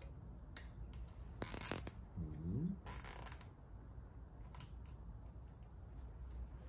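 Hand tools and metal engine parts being handled during a timing belt install: scattered sharp clicks and two short rasping noises, with a brief rising tone between them.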